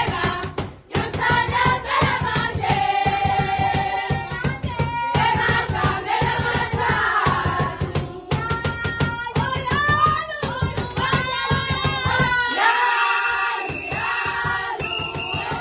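A group of young women singing a traditional Zulu song together and clapping in rhythm. Near the end the clapping drops away and the voices carry on.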